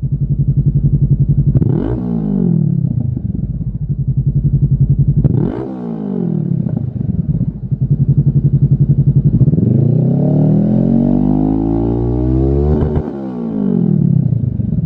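Honda CB500F's parallel-twin engine through a Lextek OP15 stainless aftermarket silencer, idling and revved with the bike standing still. There are two quick throttle blips in the first six seconds, then a longer rev that climbs for about three seconds and drops back to idle near the end.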